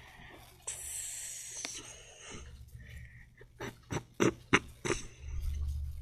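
A dog playing with a rubber balloon: a rustling hiss about a second in, then a series of sharp taps and knocks.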